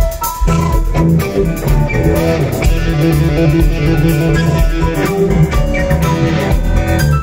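Loud live rock band playing: a flute lead over electric guitar, bass guitar and drums.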